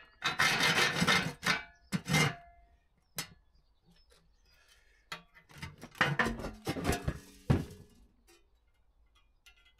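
Hacksaw blade rasping in short strokes in the cut corners of a steel air-compressor tank. After a pause, more scraping and clanking of the tank's sheet steel comes between about five and eight seconds in, as the cut section is worked loose.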